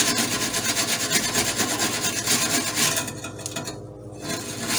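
A slightly wet metal scouring pad scrubbing hardened grease splatter off the stainless steel inner wall of an Emeril Lagasse Air Fryer 360, in rapid rasping strokes. The scrubbing eases off briefly about three seconds in, then resumes near the end.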